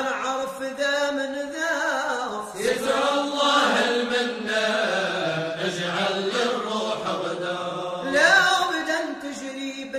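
Arabic sung poetry in the Andalusian-Maghrebi style: a voice chanting melismatic phrases with a wavering pitch. A new phrase starts about two and a half seconds in and another near the end.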